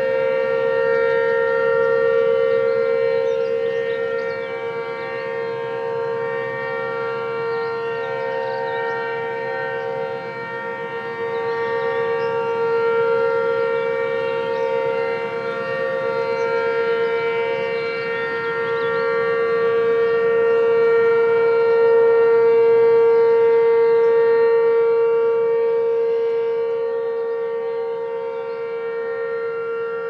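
Several outdoor warning sirens sounding together in a test, a mix of Federal Signal 2001-SRNB and ACA Screamer and Banshee 115 units. They hold a steady wail on two close pitches that slowly swells and fades over several seconds.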